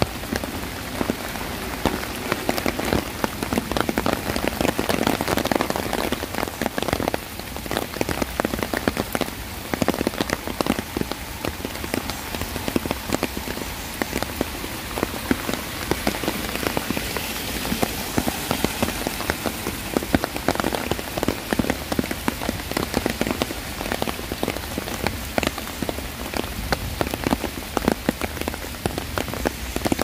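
Steady rain falling, with many separate drops striking and splashing on surfaces in a dense, irregular stream of small taps.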